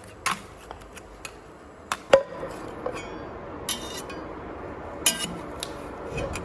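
Candy-making work: irregular sharp clicks and knocks of hard candy and tools, a few ringing briefly like a clink, with a short rattle about four seconds in. The loudest knock comes just after two seconds in.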